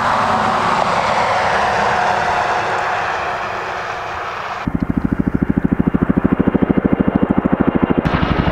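Highway traffic noise swelling and fading as a vehicle passes. About halfway through it gives way abruptly to the fast, even thudding of a tandem-rotor CH-47 Chinook helicopter's blades as it flies over.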